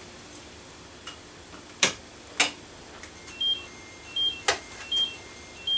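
Sharp clicks of model railway rolling stock being set onto the track with a plastic re-railer, a few over the first seconds and another past the middle. From about halfway in, a short two-note chirp repeats steadily, about four every three seconds.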